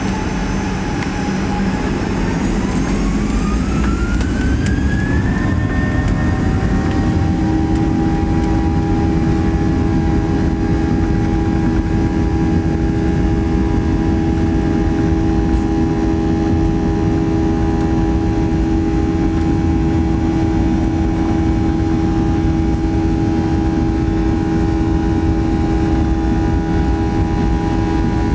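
Boeing 737-800's CFM56 turbofan engines spooling up to takeoff thrust, heard from inside the cabin over the wing: a rising whine over a few seconds, then a steady buzz and drone at takeoff power as the takeoff roll begins.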